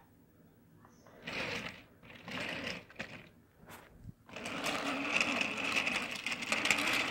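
Small electric motor of a motorised toy train whirring as it runs along plastic track, in two short spurts and then steadily from about four seconds in.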